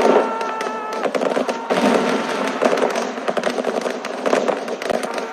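Battle sound effect: dense, continuous gunfire, many rapid shots overlapping in a crackling volley, with a steady high tone held through the first second before it cuts off.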